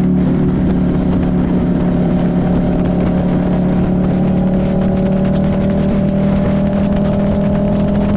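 Buell 1125CR's 1125 cc V-twin engine running under way at a steady cruise, its pitch climbing slowly as the bike gathers speed, with road and wind noise beneath.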